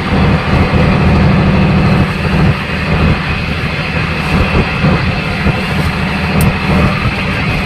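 Fishing boat's engine running steadily with a loud, low drone.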